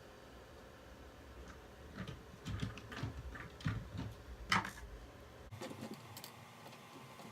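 Light clicks and taps of hard plastic toy parts being handled during disassembly, bunched in the middle, with the sharpest one about four and a half seconds in.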